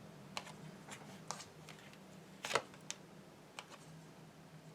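Tarot cards being handled on a table: a scatter of faint clicks and taps, with one sharper snap about halfway through.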